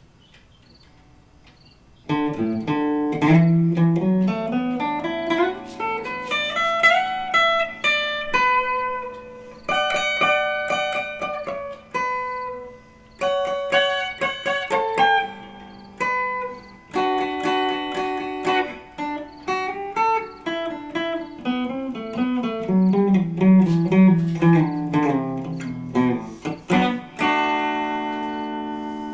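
Electric guitar played through an amplifier on a clean tone with a coil-split pickup. Picked arpeggios start about two seconds in, climbing and falling, and end on a chord left to ring.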